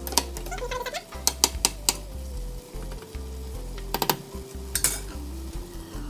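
Minced meat stirred in a pan: a spoon clinks sharply against the pot several times over a faint sizzle.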